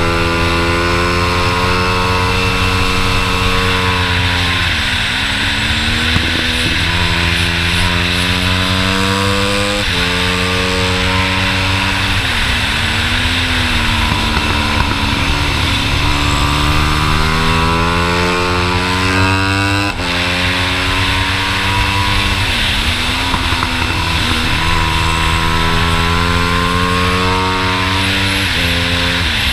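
Race-prepared Monkey-style minibike engine at full throttle on track, pitch climbing steadily as it accelerates, dropping sharply at gear changes and dipping briefly several times as it slows into corners, over a constant rush of wind.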